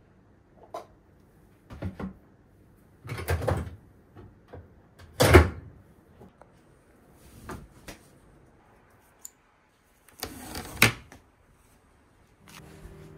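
Household handling sounds: a series of short knocks and clunks from plastic containers and the lid of a top-loading washing machine, with two longer rustling, scraping stretches. The loudest clunk comes about five seconds in. Near the end a drawer slides and stops with a knock.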